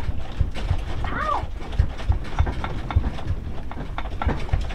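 Irregular thuds, knocks and clicks in a house during an earthquake, two or three a second, with a short squeak that rises and falls about a second in.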